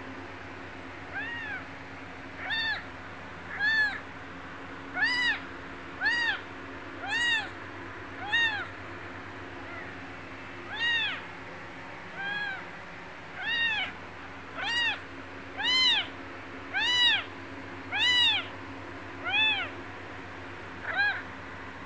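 Six-day-old kitten mewing again and again, about sixteen short cries roughly a second apart with a brief pause near the middle. Each cry rises and falls in pitch.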